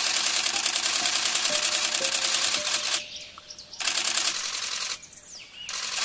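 Cicadas buzzing in a loud, fast pulsing drone that cuts off abruptly about three seconds in, comes back briefly, and starts again near the end. A few faint bird chirps sound in the gaps.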